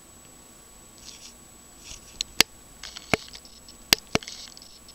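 Magpie pecking at food on the patio: a handful of sharp taps of its bill, four of them loud in the second half, with light scratchy rustles in between.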